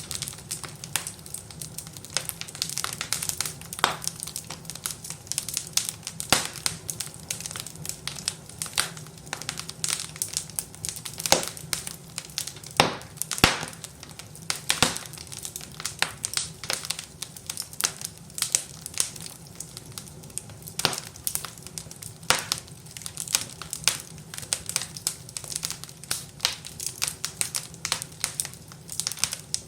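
Fire crackling and popping: a dense run of irregular sharp pops and crackles, some much louder than the rest, over a faint steady low rumble.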